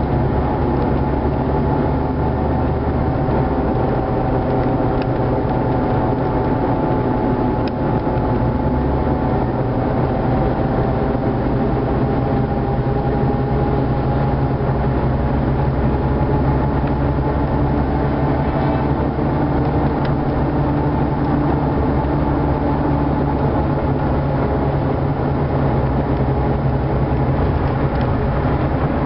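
Steady engine and road noise heard inside a car's cabin while driving at highway speed.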